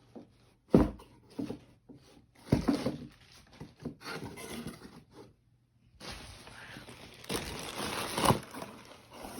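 Handling noises: sharp knocks of things being picked up and set down, about a second in, at two and a half seconds and again near the end, with paper rustling over the last three seconds as the instruction sheet is handled.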